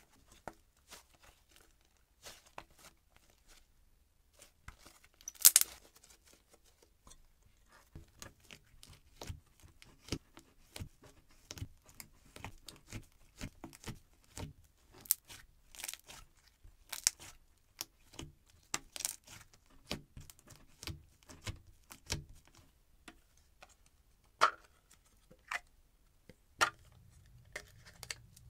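Soft, poppy DIY slime being squished and pressed by fingers in a plastic tub, making an irregular string of small pops and crackles. The loudest pop comes about five seconds in.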